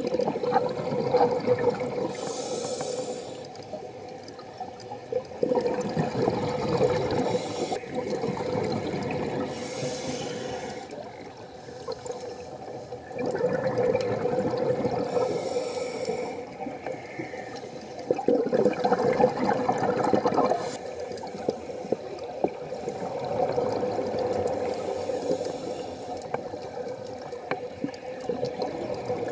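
Scuba regulator breathing underwater: a short hiss on each inhale, then a longer, louder gurgle of exhaust bubbles on each exhale, repeating about every five to six seconds.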